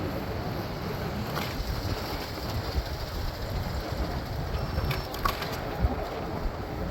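Wind rumbling on the microphone and city traffic noise while riding an electric scooter, with a couple of sharp clicks.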